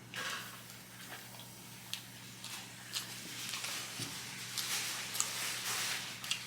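Close-up chewing and mouth sounds of a person eating fast food: wet, crunchy chewing with many short sharp clicks, over a faint steady electrical hum.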